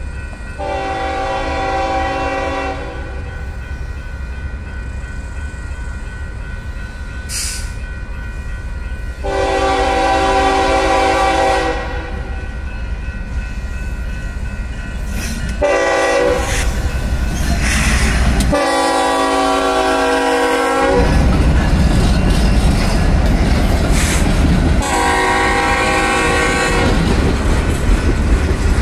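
Diesel freight locomotive's air horn sounding a series of long blasts with a short one among them, the grade-crossing warning, as the train approaches. From about halfway the deep rumble of the locomotive and the clatter of freight cars' wheels on the rails grow loud as the train passes.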